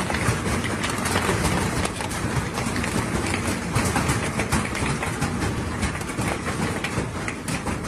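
Hailstones pelting down hard, a continuous dense clatter of many stones striking hard surfaces.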